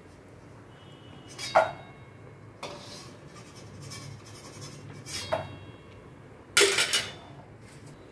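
A metal utensil knocking and clinking against a cooking pan while fried murukku is lifted out of the oil: a few separate sharp clinks, with the loudest, a quick cluster of strikes, near the end.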